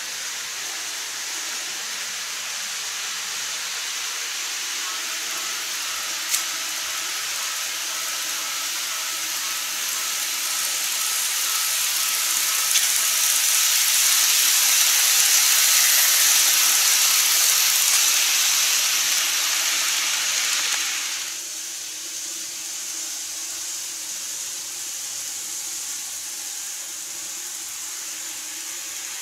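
Micro Ace N-gauge model of the Odakyu 60000 MSE running on the layout track: a steady hiss of wheels rolling on the rails with a faint motor whine, swelling as the train passes. The sound drops away abruptly about two-thirds of the way through.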